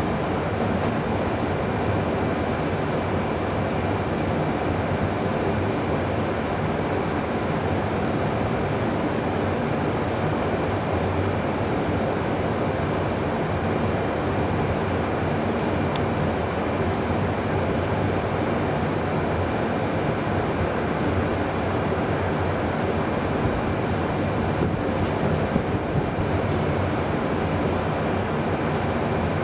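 Amtrak Superliner bi-level passenger cars rolling past at close range: a steady, even noise of steel wheels running on the rails.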